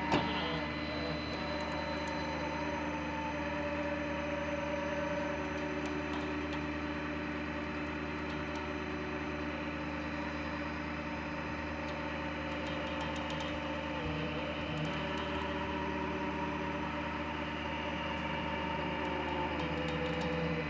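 Wrecker tow truck's engine running steadily while its winch cable pulls a pickup truck out of a creek, a constant hum with a few steady tones.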